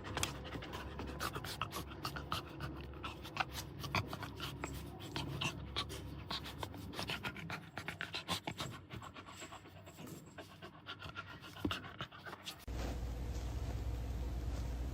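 A dog panting, with many quick irregular clicks and smacks. About thirteen seconds in it cuts to a steady low hum.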